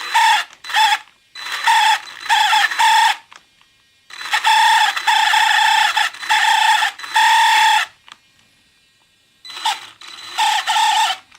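Traxxas Summit RC truck squealing as it is throttled up slowly: a loud, steady, high squeal in repeated bursts, from under a second to nearly four seconds long, with short pauses between. The owner suspects the slipper clutch.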